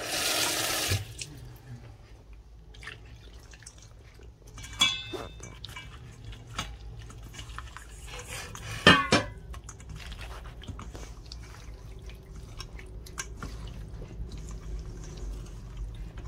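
Tap water running into a stainless steel bowl for about a second, adding water to the masala. Then hands squish and mix small whole fish in a wet spice-and-flour paste in the steel bowl, with scattered clicks and a few sharper knocks against the bowl, the loudest about nine seconds in.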